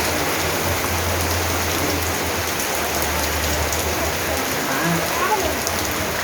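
Heavy rain pouring steadily, drops hitting hard surfaces in a continuous hiss.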